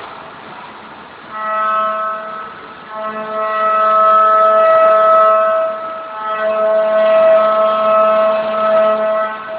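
Mikron HPM 1150U machining centre milling: a steady high-pitched cutting whine that swells as the cutter bites into the workpiece and dips briefly between passes.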